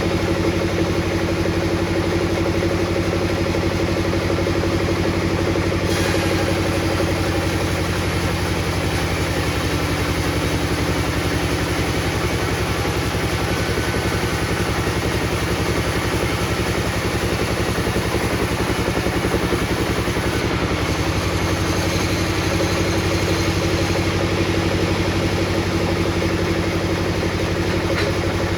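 Table saw running steadily: a constant motor hum under a broad whirring noise. The note shifts about six seconds in and again around twenty seconds in.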